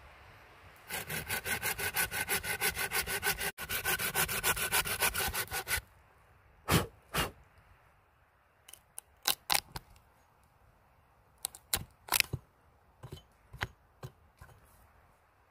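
Hand saw cutting shallow kerfs across a small green log with quick back-and-forth strokes, about five or six a second, for about five seconds. Then an axe chips out the wood between the kerfs, sharp knocks spaced irregularly, some in quick pairs.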